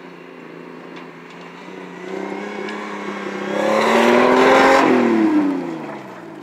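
Engine of a home-built off-road buggy revving harder and rising in pitch as it drives up fast on dirt. It is loudest as it passes close, about four seconds in, with tyres scrabbling on the dirt, then drops in pitch as it pulls away.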